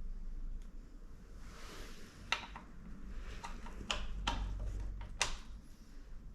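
Light clicks and taps of a small tool working the washer out of the crank bolt recess of a bicycle crank arm. A soft rustle comes first, then about six sharp clicks over three seconds.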